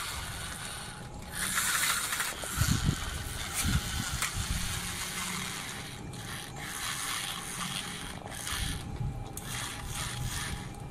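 Toy RC car's small electric motor and plastic gearbox running with a grinding, ratcheting rattle. It is louder for a few seconds near the start, with a few low knocks.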